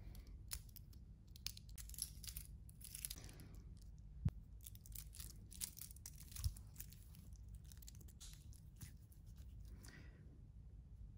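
Stainless steel link bracelet of a Citizen Promaster diver's watch clinking and rustling as it is handled, with two sharp clicks of the clasp about two seconds apart near the middle.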